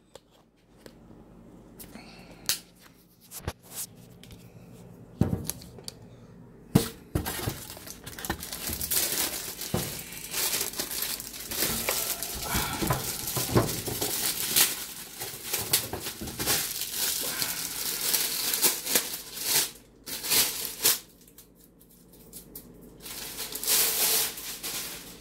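Plastic wrapping being pulled off a car amplifier and crumpled, a dense crinkling with many small clicks, after a few scattered knocks of the amp and its packaging being handled. The crinkling pauses briefly and starts again near the end.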